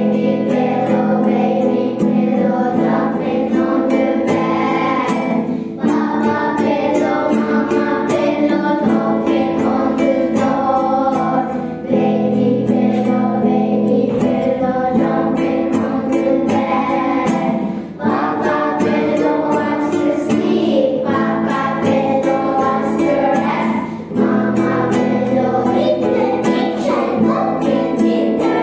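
A group of young children singing a gentle nursery song together to a strummed acoustic guitar, in phrases about six seconds long.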